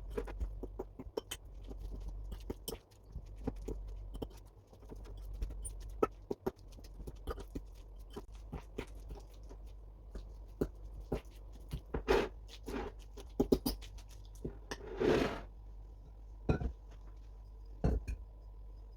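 Kitchen utensils working in a mixing bowl while preparing muffin batter: irregular clicks, taps and scrapes, with a few heavier knocks in the second half and a longer scrape about fifteen seconds in.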